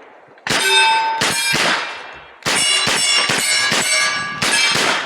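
A quick string of about ten gunshots at steel targets, each followed by the ringing clang of a hit steel plate. The shots start about half a second in.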